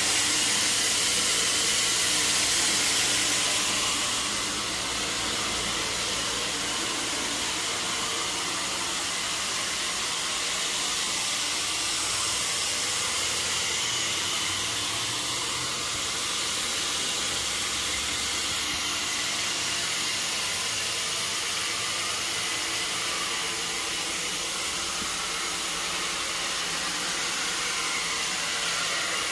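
Steady, loud rushing of air from carpet-cleaning equipment left running, easing off slightly about four seconds in.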